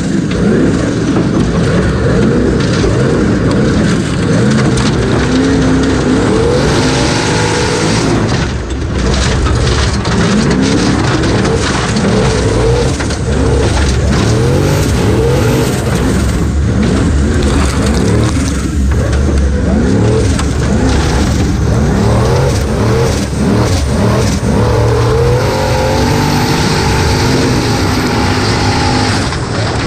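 Formula Offroad racing buggy's engine at full race pace, heard from a camera inside the open cockpit: loud, its pitch rising and falling over and over as the throttle is worked, with a brief drop about eight seconds in.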